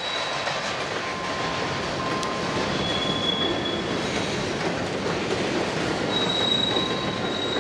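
Freight train of tank cars rolling past, a steady noise of wheels running on rail. Thin high-pitched wheel squeals come and go, briefly about three seconds in and again from about six seconds on.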